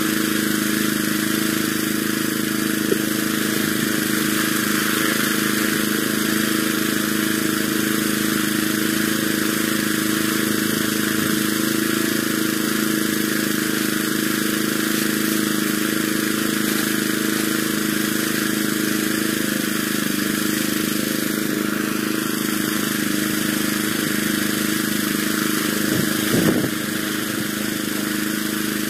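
Small stationary gasoline engine running steadily at a constant speed, with a brief clatter of knocks near the end.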